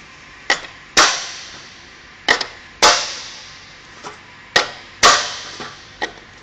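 Orange plastic top plates being clicked, one after another, onto the segments of a Bretby cable-handler chain lying in a steel channel: about nine sharp clacks, often in pairs about half a second apart, each followed by a short ringing tail.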